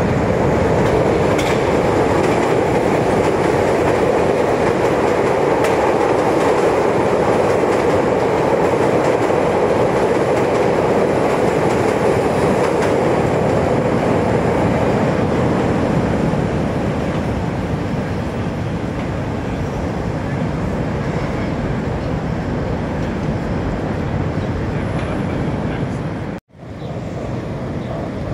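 Chicago 'L' rapid-transit train running on the steel elevated structure overhead: a loud, steady rumbling of wheels on rail and the steel trestle, easing somewhat after about sixteen seconds. The sound cuts out for a moment near the end.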